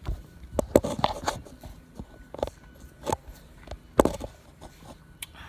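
Irregular knocks, clicks and scrapes of a phone being handled, with fingers rubbing and tapping its case close to the microphone.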